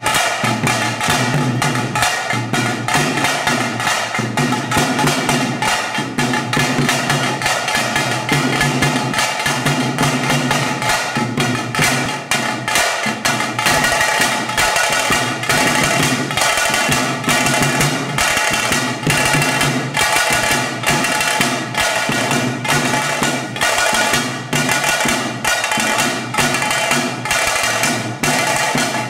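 Taase drums beaten with sticks in a loud, fast, steady rhythm: the drumming that accompanies a Pili Vesha tiger dance.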